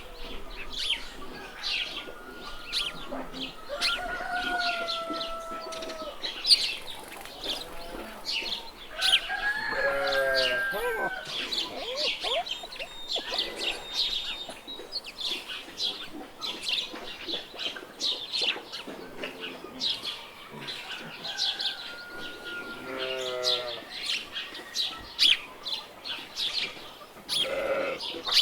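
Farmyard ambience: small birds chirping steadily, with chickens calling a few times in longer, lower calls.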